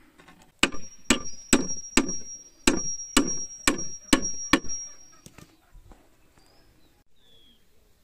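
Hammer striking a wooden plank: about nine sharp blows, roughly two a second, stopping about five seconds in.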